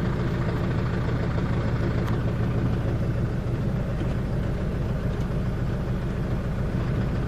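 Kia Carnival's 2.9-litre diesel engine idling steadily. It has a new clutch disc, pressure plate, release bearing and flywheel, and no longer makes the noise from inside that was blamed on the gearbox.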